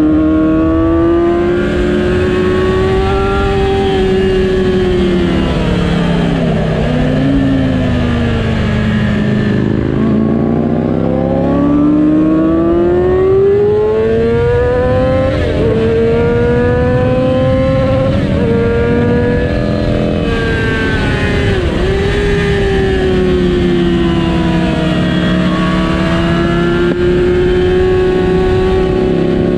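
A 2007 Yamaha R6's 600 cc inline-four motorcycle engine running hard on a race track. Its pitch sinks for several seconds as the bike slows, then climbs again under acceleration, broken by a few short dips at gear changes.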